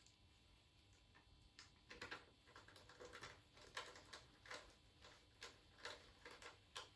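Faint, irregular clicking and tapping, several clicks a second, starting about two seconds in.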